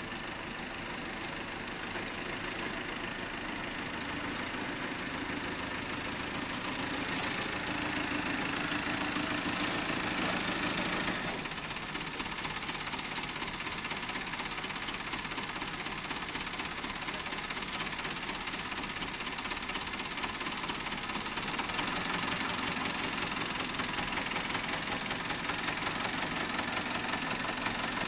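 Forklift engine running, getting louder over the first ten seconds and dropping back sharply about eleven seconds in, then running steadily with an even, rapid clatter.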